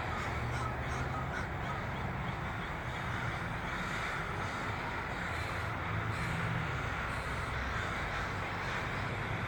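A huge flock of crows cawing all at once, so many overlapping caws that they merge into one unbroken din. This is the evening gathering of thousands of crows at sunset, typical of birds heading to a communal winter roost. A steady low hum runs underneath.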